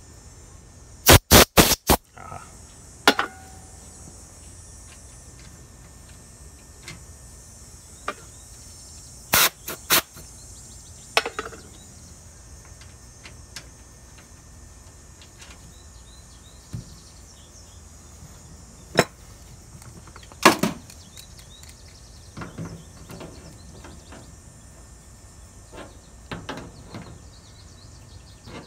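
Short blasts from a can of compressed air blown into the brass service-valve fittings of a ductless mini-split to clear out debris and moisture: four quick puffs about a second in, then single puffs scattered through the rest, with small clicks of fittings being handled. A steady high hiss runs underneath.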